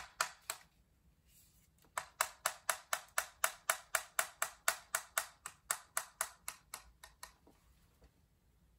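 Flat iron's plates clicking open and shut in a fast, even rhythm, about four clicks a second, while curling hair; the clicking starts about two seconds in and stops after about five seconds.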